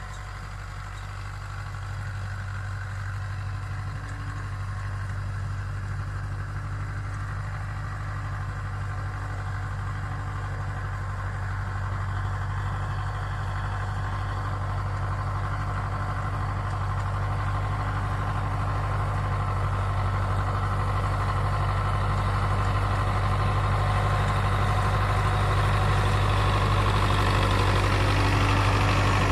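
Belarus tractor's diesel engine running steadily under load while pulling a rotary tiller through the soil, growing steadily louder as it comes closer.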